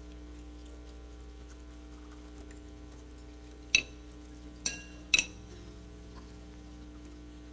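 Three sharp clinks against a china plate, each ringing briefly, about a second apart, over a steady low hum.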